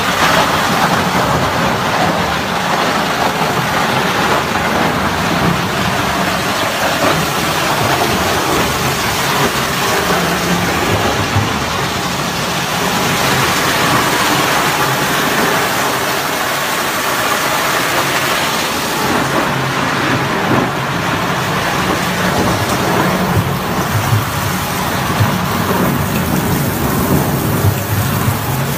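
Horizontal wood grinder running steadily while shredding wooden pallets into chips: a loud, continuous dense noise over a steady low drone.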